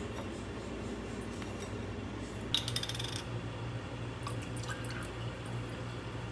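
Small hard objects clinking and rattling briefly, a little over two seconds in, with a few lighter clicks after it, over a steady low hum.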